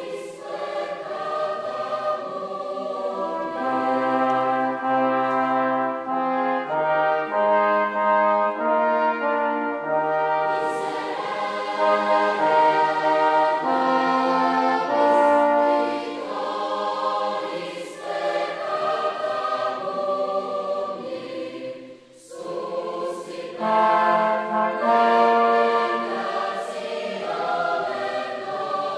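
Massed choirs singing a Mass setting together with a brass quartet of two trumpets and two trombones, in sustained chords that move every second or so. The music breaks off briefly about 22 seconds in, then resumes.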